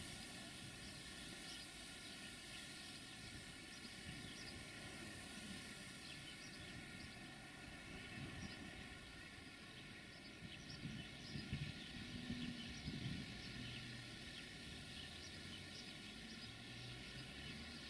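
Faint, distant rumble of an Electroputere 060-DA (LDE2100) diesel-electric locomotive's Sulzer engine running, with a few louder low bumps about two-thirds of the way through.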